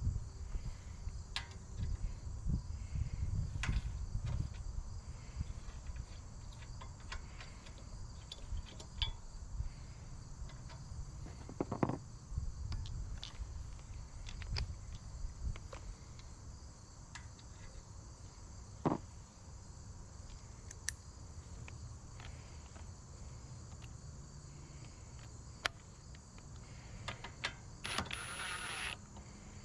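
A steady high-pitched insect chorus, with scattered light clicks and knocks of hand tools and bolts as a shield is fastened onto an engine.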